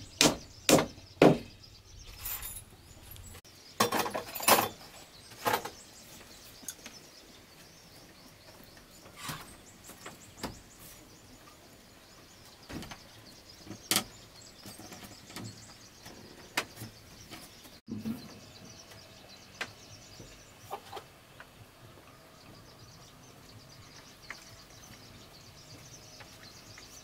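Hammer blows on wooden log slats, about two a second in the first second or so, then a few more strikes around four to six seconds in. After that come scattered single knocks of wood on wood, and between them a quiet background with faint bird chirps.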